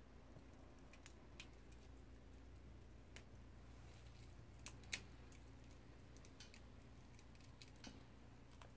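Wood burning in a small stainless-steel twig stove, crackling faintly: scattered small pops and clicks, the sharpest about five seconds in, over a faint low hum.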